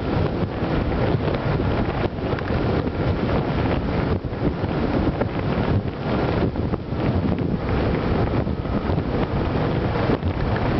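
Steady wind buffeting on the camera microphone, which is mounted above the windscreen of a Suzuki Gladius 400 motorcycle under way, heavy in the low end and covering the bike's running and road noise.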